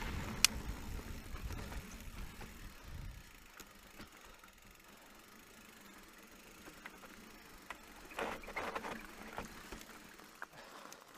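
Faint rolling noise of an electric mountain bike on a loose gravel track: tyres on stones and light rattles of the bike, with a sharp click about half a second in. It dies down to almost nothing in the middle, then a few short knocks come back near the end.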